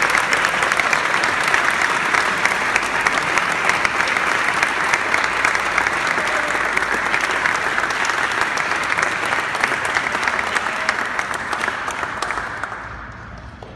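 A crowd applauding: a long, steady round of clapping that dies away near the end.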